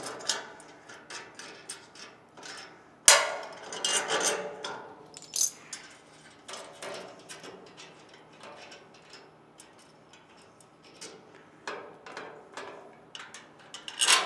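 A socket ratchet clicking as bolts are taken off a hopper's legs, with metal clinks and knocks of loose hardware. The sharpest knock comes about three seconds in, and another comes near the end.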